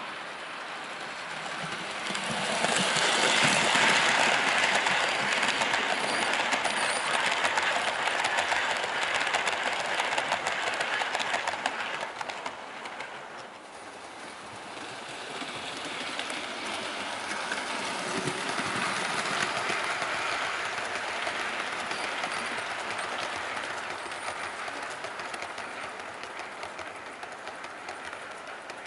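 Model trains running on the layout track: a rumble of wheels with fast clicking over the rail joints. It swells as a train passes about 2 seconds in, dips briefly near the middle, and rises again as another train comes past.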